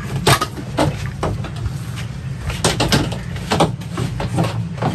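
A length of PVC conduit knocking and scraping against the boat's wooden trim and hull liner as it is worked through a narrow gap: irregular sharp knocks every half second or so, over a steady low hum.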